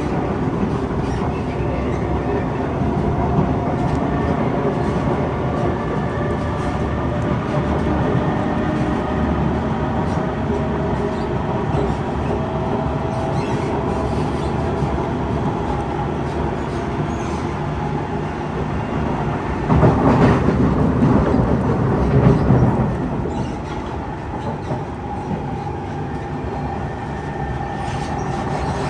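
Kawasaki C151 metro train running between stations, heard from inside the carriage: a steady rumble of wheels on rail with a faint motor whine over it. About twenty seconds in, a louder rush swells for two or three seconds, and then the running noise settles slightly lower.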